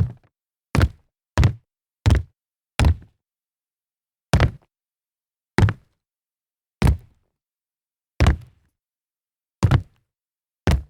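Sneakers landing from jumps: eleven separate thuds, each a sharp hit with a deep body. The first five come about two-thirds of a second apart, the rest more slowly, about one and a half seconds apart.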